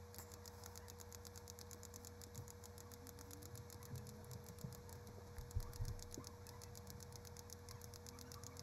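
Faint computer mouse clicking, several clicks a second in quick succession, over a low steady electrical hum. A soft low thump or two comes about five and a half seconds in.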